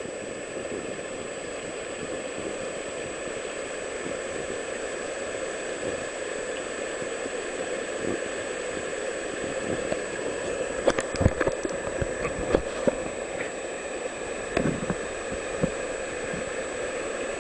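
Floodwater flowing with a steady rush and gurgle. A handful of short sharp knocks or splashes come in the second half.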